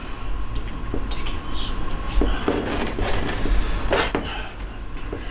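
A few short knocks and clatters of kitchen handling, as a spatula and cookware are picked up and moved at the stove, the loudest about four seconds in. A steady low hum runs underneath.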